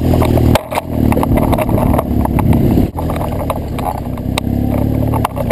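BMW R100GS Paris-Dakar's air-cooled boxer twin engine running under throttle on a rough trail. The note dips briefly about half a second in and again near three seconds. Scattered knocks and rattles come from the bike jolting over the ground.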